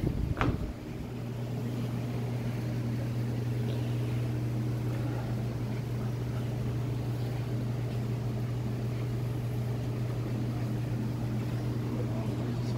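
Large electric floor fan running with a steady low hum. There is a brief thump right at the start.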